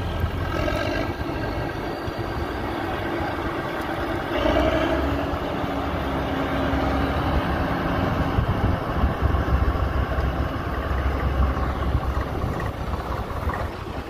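Punni Grain Cruiser combine harvester running steadily, its diesel engine and threshing machinery working together in a dense, continuous mechanical noise.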